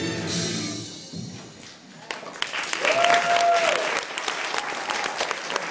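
Music from a stage musical fades out over the first couple of seconds, then the audience breaks into applause, with one long cheer about three seconds in.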